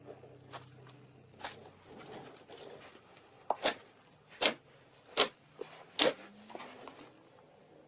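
Slime being pressed and squeezed by hand, giving soft squishing and sharp popping clicks. Four loud pops come in the second half, a little under a second apart.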